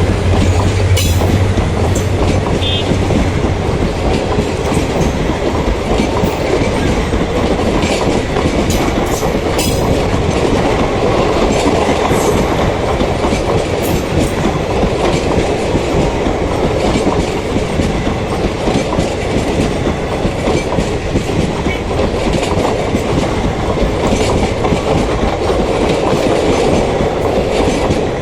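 Express passenger train passing at speed without stopping, its coach wheels clattering over the rail joints in a steady loud rumble. A low hum fades out in the first few seconds.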